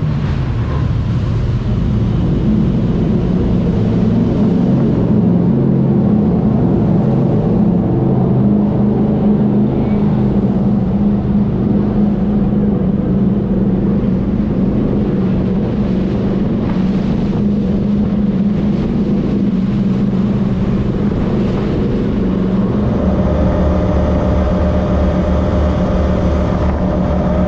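A jet boat's twin V8 engines running steadily under way, loud and even. The engine note changes near the end.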